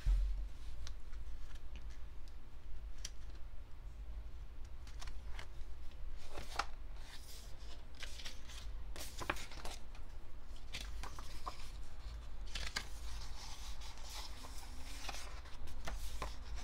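Hands opening a picture book and turning its paper pages: scattered taps and rustles, with a longer stretch of page rustling about three-quarters of the way through.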